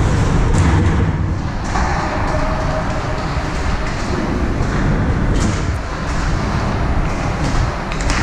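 Ice rink game noise during a hockey game: a steady, loud rumble with a few sharp clacks scattered through it, such as sticks, puck or skates.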